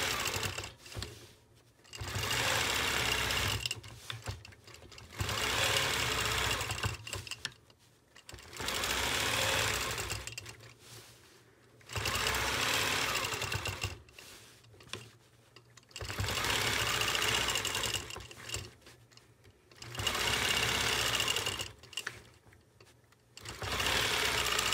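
Longarm quilting machine stitching in short runs of about two seconds, stopping and starting about eight times, as its head is guided around an acrylic circle ruler.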